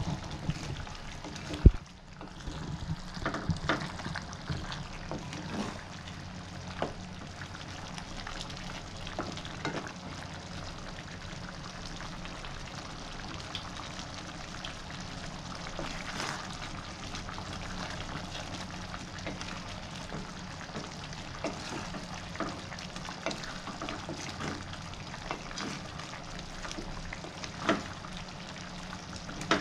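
A pan of beef kurma simmering on the stove, with a wooden spatula stirring it and knocking against the pan now and then; one sharp knock near the start.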